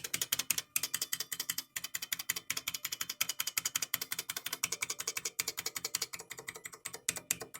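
Buckling-spring keys of a Model F reproduction keyboard pressed in quick succession, making a fast, even run of crisp clicks at about ten a second that thins out near the end.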